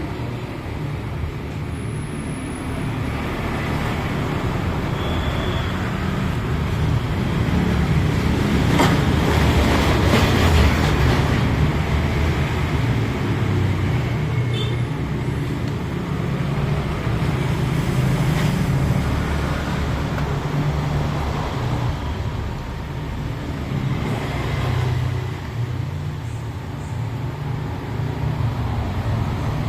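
Steady road traffic rumble, with louder swells as vehicles pass.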